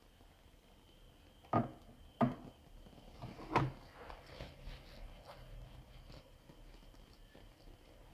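Fireworks bursting: three sharp bangs in the first four seconds, the third the loudest, then fainter scattered pops and crackle.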